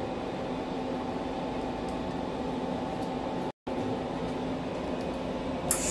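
Steady machine hum from a TIG (argon arc) welding setup, cut off for a split second a little past halfway. Near the end a sudden hiss with a high steady whine starts as the TIG arc is struck.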